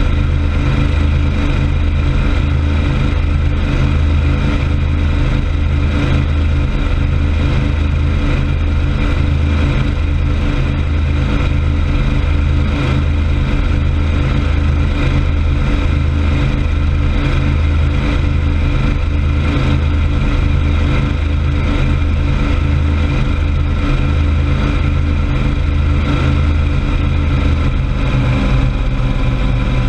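Motorboat engine running steadily at speed, running smoothly, over the rush of churning wake water; the engine note dips slightly near the end.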